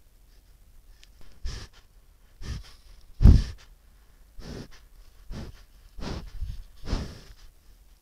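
Moose calf sniffing and snuffling right at the trail camera's microphone: about seven short, breathy puffs, roughly one a second, the loudest about three seconds in.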